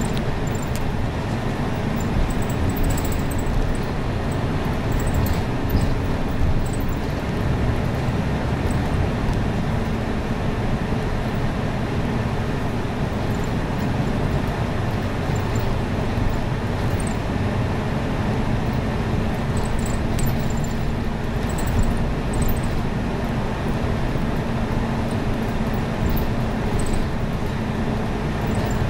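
City bus driving in service, heard from inside: a steady engine and road drone with a constant low hum and a few faint rattles.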